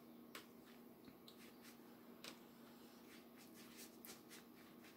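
Near silence with faint scratchy strokes and soft ticks of a watercolour brush working paint onto paper, over a low steady hum.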